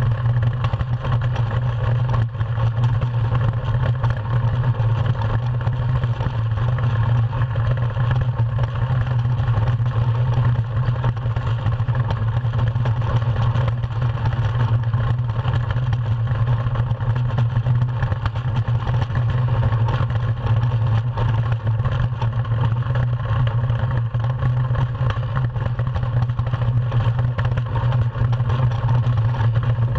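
DN-class iceboat's steel runners running over the ice under sail: a steady, loud low drone with a hiss above it, picked up through the hull by a deck-mounted camera.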